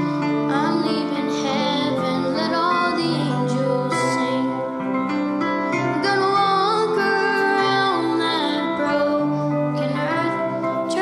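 A boy's unbroken voice singing a slow Christmas gospel song into a microphone, accompanied by grand piano.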